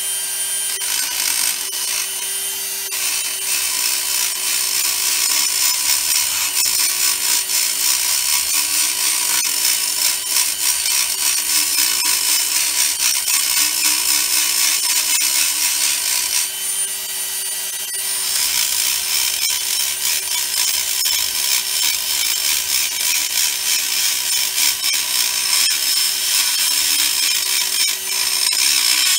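Corded handheld rotary tool running at high speed and grinding on a carburettor's metal throttle base plate by the throttle shaft: a steady high whine over a rough grinding hiss, which eases and changes briefly a little past halfway.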